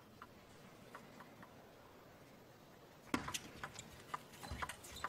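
Table tennis ball ticking off bats and table: a few faint taps, then from about three seconds in a quick run of sharp clicks as a rally is played.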